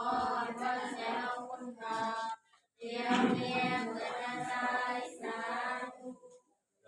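A group of voices singing a Christian hymn together in long, held notes. The singing cuts out abruptly twice, about two and a half seconds in and near the end.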